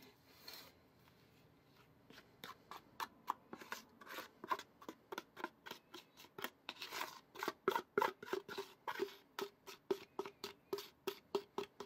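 Wooden spoon scraping cake batter out of a plastic mixing bowl, in quick repeated strokes. The strokes start about two seconds in and grow louder after about seven seconds, settling into about three a second.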